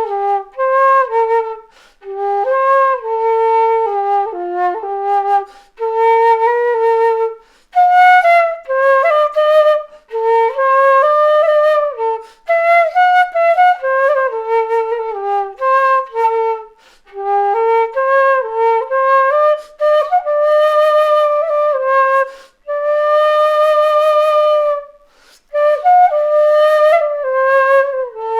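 A PassionFlute keyed in F4 playing a solo melody in short phrases separated by brief breath pauses, with one long held note about two thirds of the way through. The recording has slight reverb.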